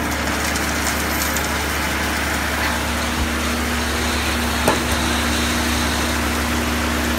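A truck's diesel engine runs steadily, driving the boom conveyor that delivers gravel, with an even rush of falling stone over it. One sharp knock comes about four and a half seconds in.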